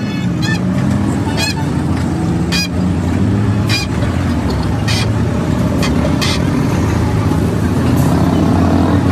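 A vehicle engine runs steadily, with short sharp clicks about once a second on top.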